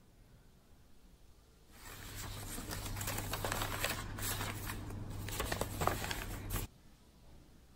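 Sheets of paper rustling and shuffling as they are handled and passed over a folder, with a low steady hum underneath. It starts about two seconds in and cuts off suddenly near the end.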